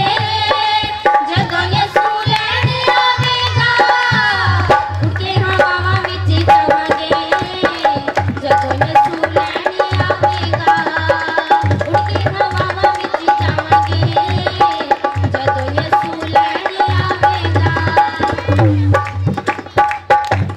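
A group of women singing a Punjabi Christian devotional song (Masihi geet) through microphones, over a steady, fast hand-drum beat and long held instrumental notes.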